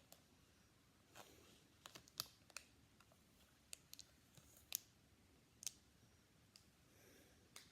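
Pokémon trading cards being handled: soft sliding rustles and sharp light clicks and taps at irregular intervals, a cluster of them around two seconds in and single ones later.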